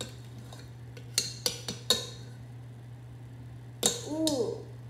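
Spoon clinking against a glass container while stirring slime: a quick run of four clinks between about one and two seconds in, then a louder clink near the end followed by a short pitched squeak that bends up and down.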